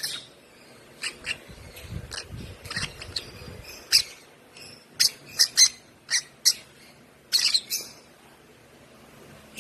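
A one-month-old African lovebird chirping: short, sharp high-pitched calls at irregular intervals, several coming in quick runs of two or three.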